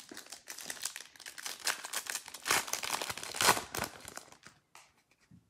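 Foil wrapper of a Panini Select football card pack crinkling and tearing as it is opened by hand and the cards are pulled out. The crackling stops about a second before the end.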